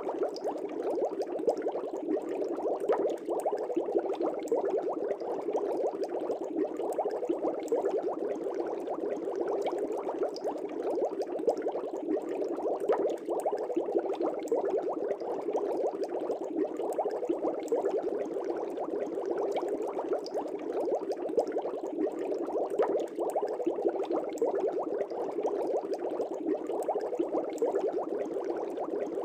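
Aquarium air bubbles rising and breaking at the water surface, a steady dense bubbling.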